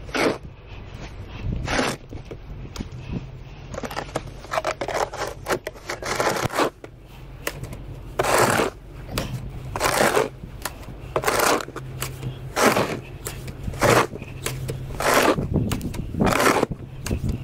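Snow shovel scraping and scooping through deep snow in repeated strokes, about one every second and a half in the second half, over a low steady hum.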